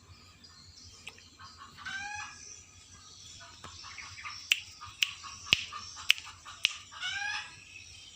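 A jalak (starling) calling: a short call with falling, layered pitch about two seconds in and another near the end. Between them come five sharp clicks, about two a second, the loudest sounds here.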